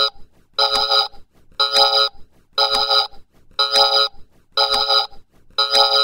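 An electronic beeping tone repeating evenly about once a second, each beep about half a second long and made of several steady pitches sounding together.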